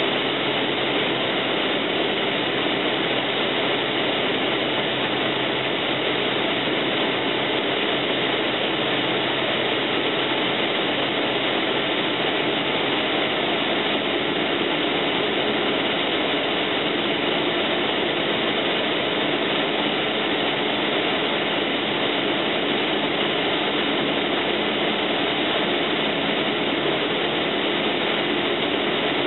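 Cessna 172M's four-cylinder Lycoming engine and propeller running steadily, heard from inside the cabin, with no change in power.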